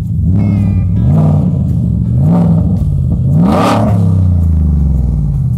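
Whipple-supercharged 5.0-litre Coyote V8 in a 2020 F-150, blipped three times through its custom exhaust with a dump. Each rev rises and drops back to idle, and the third, about three and a half seconds in, goes highest.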